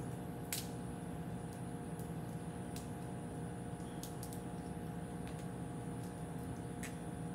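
Boiled crawfish shell being peeled by hand: scattered small sharp cracks and clicks, the loudest about half a second in, over a steady background hum.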